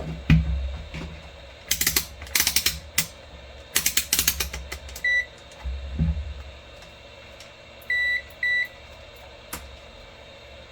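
Multimeter continuity beeper giving three short high beeps, one about halfway through and two in quick succession later, each confirming that a freshly soldered cable joint conducts. Before the beeps come clusters of clicks and rattles from the probes and wires being handled.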